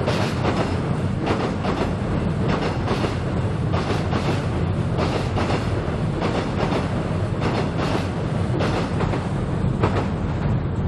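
A Seoul Subway Line 7 train crossing Cheongdam Bridge, heard from beneath the bridge deck: a steady low rumble with a run of rhythmic clacks, often in pairs, as the wheels pass over rail joints.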